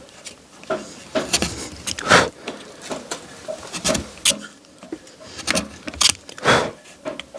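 Hand carving knife scraping and shaving the wood of a carved carnival mask in short, irregular strokes, with brief pauses between them.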